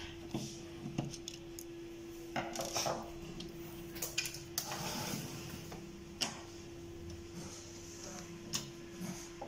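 A screwdriver and hands working on the plastic and metal parts of an HP LaserJet 1320 printer during disassembly: scattered clicks and taps, with brief scraping about two and a half seconds in and again around five seconds in.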